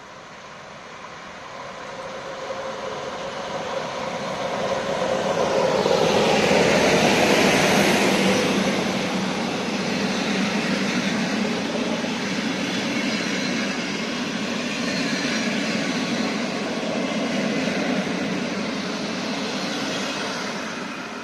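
Diesel-hauled passenger train passing. It comes in, is loudest about seven seconds in as the locomotive goes by, then the carriages roll past with a steady rumble and hiss that starts to fade near the end.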